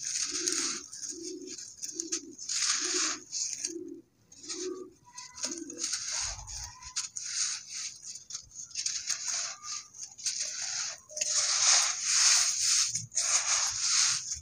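Dry cement crumbling and crunching in gritty bursts, which grow louder and run almost without a break in the last few seconds.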